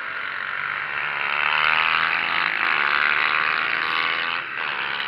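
A pack of small Mini GP race motorcycles passing at high revs, several engines at once, their pitches rising and falling as they go by; loudest in the middle.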